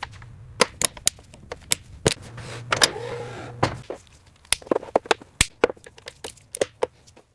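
A rapid, irregular series of sharp clicks and taps, more than a dozen, over a faint low hum.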